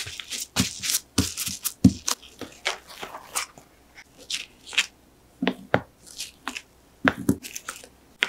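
Paper towel rustling and rubbing as thin sweet potato slices are pressed dry on a cutting board, followed by a run of short clicks and light taps from kitchen tongs picking up the slices and stacking them.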